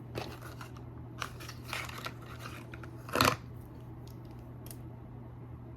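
Rummaging through makeup: rustling and small clicks as lipsticks and lip pencils are handled, with a louder rustle about three seconds in, over a steady low hum.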